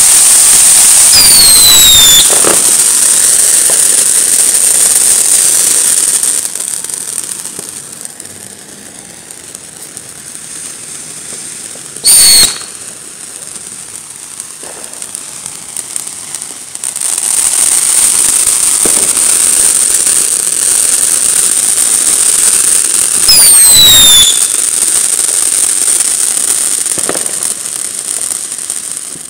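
Ground fountain fireworks spraying sparks with a steady hiss, which dies down after about six seconds and comes back loud at about seventeen seconds as more fountains burn. A single sharp crack at about twelve seconds, and short falling whistles near the start and again near the end.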